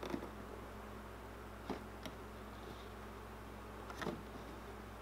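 A steady low hum, with a few faint brief clicks and rubs as fingertips press a vinyl graphics decal down onto a plastic RC truck body.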